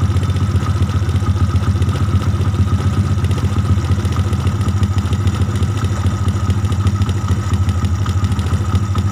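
Motorcycle single-cylinder engine idling steadily with a fast, even beat, while its carburettor screw is being turned to set the idle at its highest point.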